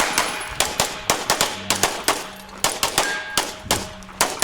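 Rapid handgun fire in a practical pistol stage: a string of about fifteen sharp shots, mostly in quick pairs a fraction of a second apart, with steel targets ringing and clanging as they are hit.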